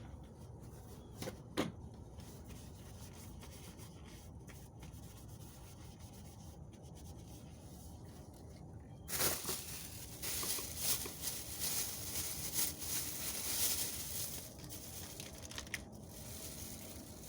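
Faint knocks, then about nine seconds in, roughly six seconds of loud crinkling and rustling of packaging as a replacement gasket is unwrapped.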